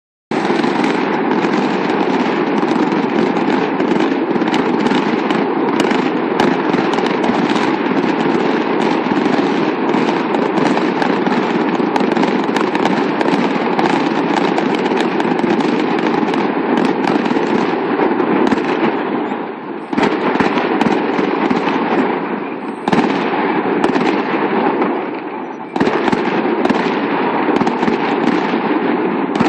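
Aerial fireworks bursting in rapid succession, bangs and crackles running together into a loud, continuous din, with short lulls about two-thirds of the way through before the barrage picks up again.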